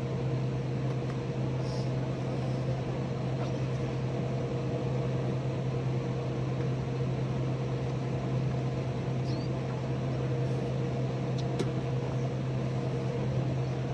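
Steady, unchanging low mechanical hum of an unseen running machine, with a faint higher steady tone above it.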